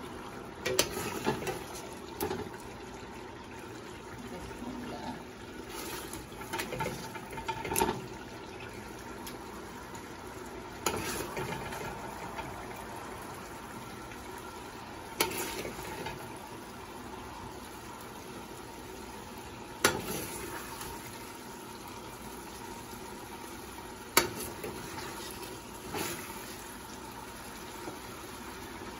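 A metal spoon knocking and scraping against a stainless steel pot as chicken pieces are lifted out of gravy, about eight sharp clinks spread out, over the steady sound of the pot simmering on a gas stove.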